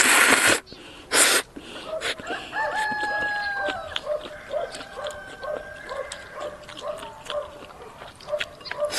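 Noodles slurped into the mouth in two short loud bursts, at the start and about a second in. A rooster crows in the background, one long call from about two and a half to four seconds in, followed by a run of short clucks.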